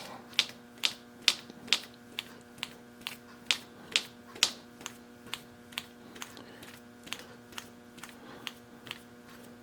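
Milling machine quill stop being cranked up: evenly spaced sharp metallic clicks, about two a second, louder at first and fading over the second half, over a steady faint hum.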